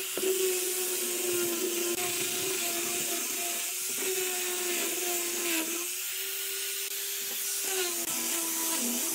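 Electric power tool running steadily, its motor pitch sagging and recovering several times as it works the wood.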